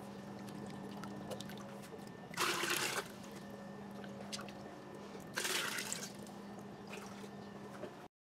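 Aquarium water being scooped and poured: a steady trickle with two louder splashing pours, about two and a half and five and a half seconds in, over a steady low hum.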